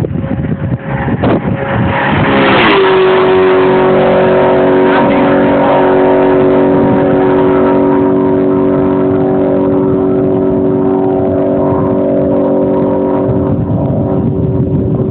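2004 Ford Mustang Mach 1's 4.6-litre V8 through a Magnaflow exhaust, revving hard and passing at speed, its pitch dropping as it goes by about two and a half seconds in. A loud, steady engine drone at one pitch then carries on.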